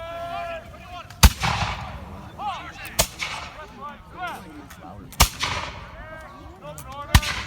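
Four single black-powder musket shots go off, roughly two seconds apart, each ringing out briefly after the crack. Faint voices can be heard between the shots.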